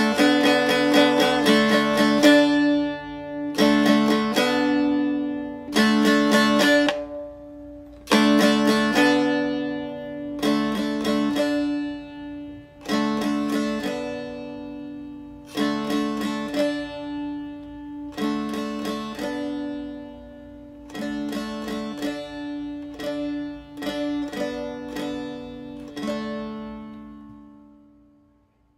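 Instrumental music: a plucked string instrument playing quick clusters of notes about every two seconds over a low held tone, fading out near the end.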